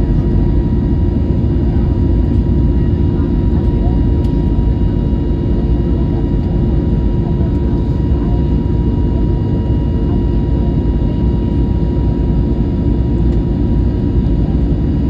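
Steady jet engine and airflow noise of an Airbus A321neo heard from inside the passenger cabin: a dense low rumble with a steady whine on top, holding even throughout.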